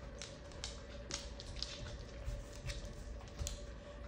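Faint scattered clicks and taps of dogs and a toddler moving about on a hardwood floor, over a faint steady hum.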